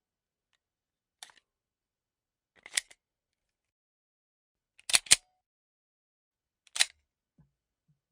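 Handgun mechanism sound effects: a series of separate sharp metallic clicks with silence between them. A faint click comes about a second in, a louder one follows, then a quick double click midway and a single click near the end.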